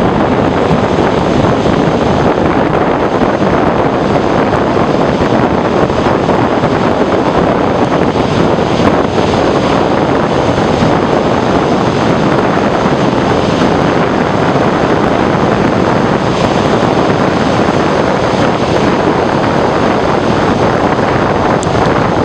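Surf breaking and washing onto a sandy beach, mixed with wind buffeting the microphone, making a loud, steady rushing roar.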